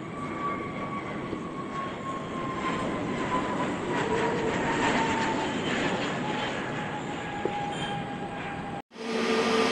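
Jet airliner engines passing close, a steady rush with a whine that slowly falls in pitch. Near the end the sound cuts out for an instant and a different, louder engine sound starts, a steady hum with two low tones.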